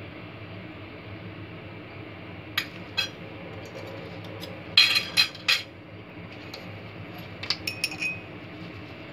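Metal utensil clinking against dishware in short groups: two clinks, then a louder run of three or four, then a quick cluster of light clinks with a brief ring near the end, all over a steady background hum.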